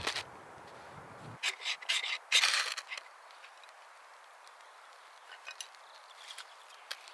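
A cluster of short clinks and knocks from objects being handled, the loudest about two and a half seconds in, then a quiet background with a few faint ticks.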